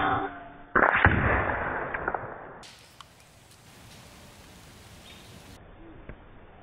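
AGT Vixen PCP air rifle firing: a sharp pop with a brief ring, then a louder crack about three quarters of a second later that fades out over a second or so.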